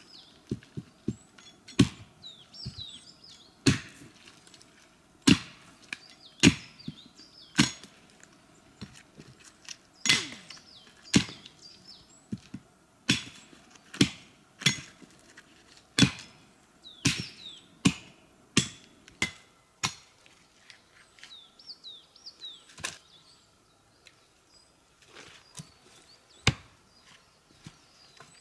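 Dry wood being chopped and broken: a run of sharp, irregular wooden knocks and cracks roughly once a second, thinning out in the last third. Small birds chirp faintly between the strokes.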